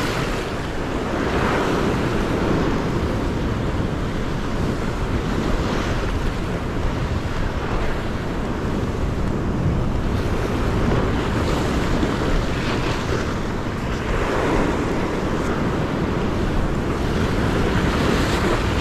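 Ocean surf breaking and washing against a rock ledge, swelling in repeated surges every few seconds, with wind buffeting the microphone.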